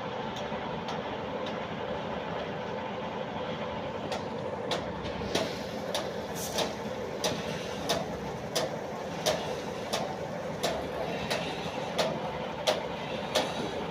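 Machinery running steadily at a concrete road construction site. About four and a half seconds in, regular sharp clicks join it, about three every two seconds.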